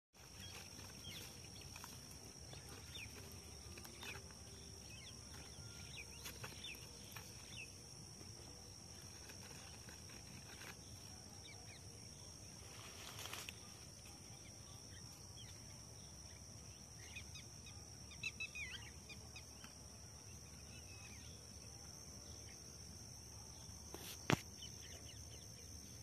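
Garden ambience: a steady high-pitched insect drone throughout, with scattered short bird chirps and one sharp click near the end.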